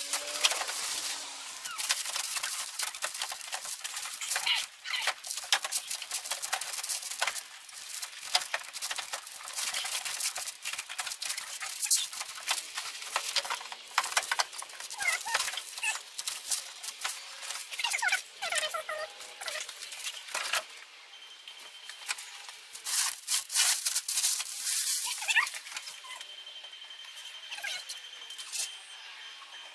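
Quick clicks, rattles and crinkling of plastic as a headlight assembly, still partly in its plastic wrap, is handled and pushed into place in a pickup's front end. The clicking is dense for about twenty seconds, then thins out.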